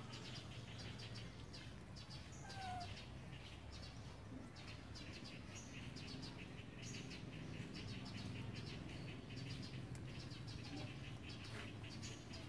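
Birds chirping in quick repeated trills, over a steady low hum.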